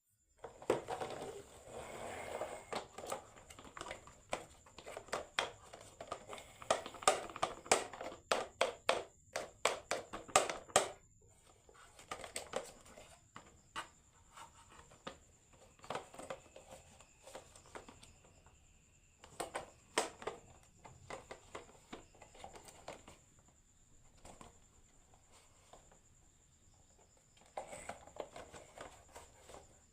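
Marbles clattering down a wooden HABA marble run: a quick rattle of clicks for the first ten seconds or so, then sparser clusters of clicks as marbles hit the track pieces.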